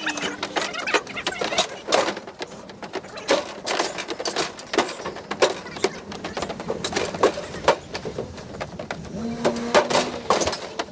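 A rapid, irregular clatter of sharp knocks and clicks, with a few faint voice sounds.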